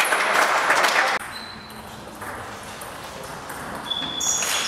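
Spectators clapping in a sports hall after a table tennis rally; the clapping stops abruptly about a second in. A quieter stretch follows, with a couple of short high squeaks from players' shoes on the hall floor near the end.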